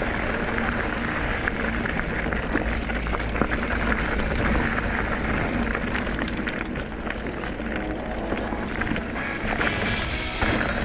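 Mountain bike riding along a dirt trail: wind rushing over the microphone, tyres rolling on dirt, and the bike rattling and clicking over small bumps.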